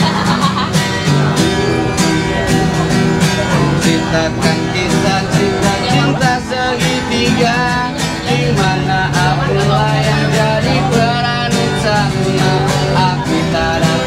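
Acoustic guitar strummed in a steady rhythm, with a voice singing along.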